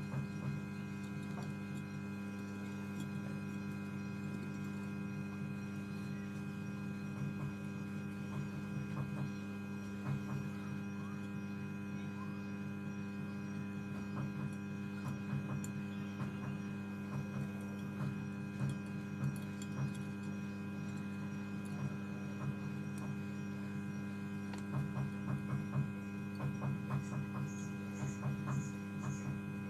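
Hot air rework station running with a steady hum in several tones while it heats the phone's logic board to desolder the damaged SIM connector. Light ticks of steel tweezers against the board sound over it, more of them near the end.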